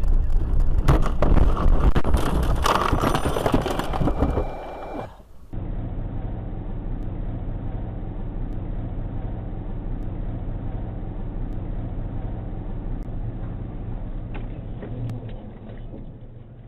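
Car engine and road noise picked up by a dashcam. For about the first five seconds it is loud and rough, with many sharp knocks. After an abrupt cut it becomes a steadier, quieter drone.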